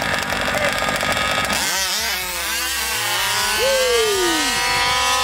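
Small two-stroke engines of 1/5-scale RC race cars launching at full throttle: a rapid, rough buzz that climbs sharply in pitch about a second and a half in, then holds at a high, steady pitch as the cars race away.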